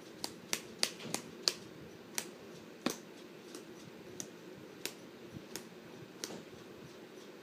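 A tin of Copenhagen Extra Long Cut Natural dip being packed by flicking and tapping it: about eleven sharp taps, four or five in quick succession over the first second and a half, then slowing to one every half-second to second.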